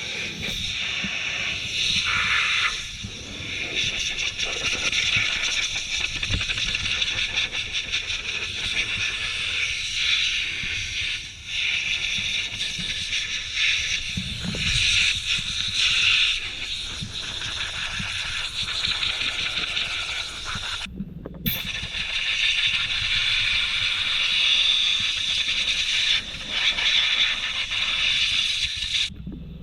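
Electric large-scale RC buggy running through snow: a steady high hiss that swells and eases, breaking off sharply twice.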